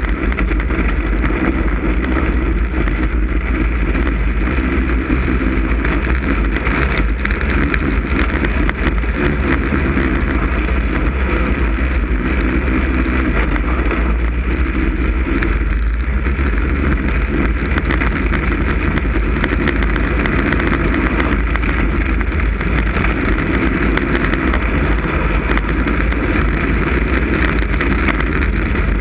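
Snowmobile engine running steadily under way, loud and unbroken, with a heavy low rumble and some wind noise on the helmet-mounted camera microphone.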